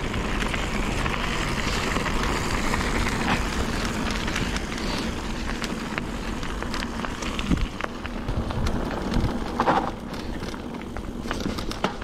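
Mountain bike riding downhill: wind rushing over the camera microphone and tyres crunching over gravel and dirt, with scattered clicks and rattles from the bike. A brief high squeak about ten seconds in.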